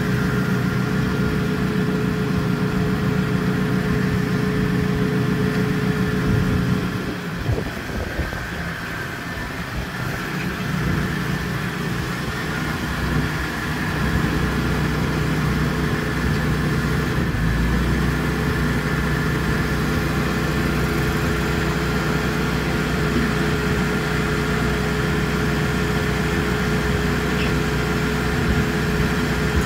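Allis-Chalmers D19 tractor's six-cylinder engine running steadily while the loader tractor is driven slowly. About seven seconds in the engine note drops and changes, then settles to a steady run again.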